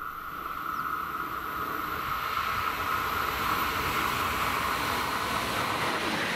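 Four coupled class 186 Bombardier TRAXX electric locomotives running light, approaching and reaching the trackside, their running noise growing louder over the first few seconds over a steady high whine.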